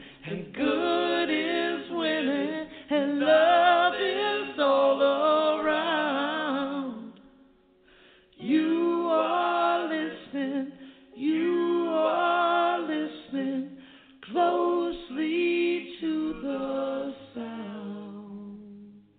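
Music: a song with sung vocals in short phrases over a low held bass note, with a brief break about eight seconds in and fading out at the end.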